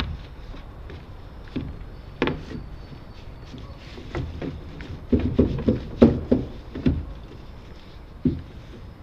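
Scattered knocks and thumps, most of them bunched about five to seven seconds in, from a small trimaran and its aluminium crossbeams being handled into the water at a dock.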